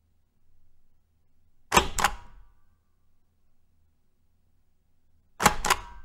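A hand stamp coming down twice, each time with a pair of sharp knocks about a quarter second apart: once a little under two seconds in and again near the end.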